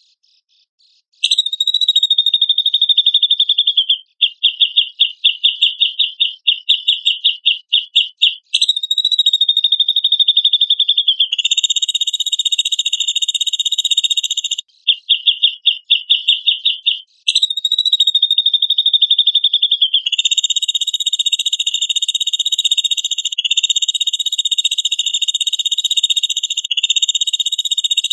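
Cucak jenggot (grey-cheeked bulbul) song played as a tutor recording: high-pitched buzzy trills, repeated over and over. Some runs break into quick separate notes, about four a second; others are unbroken buzzes a few seconds long.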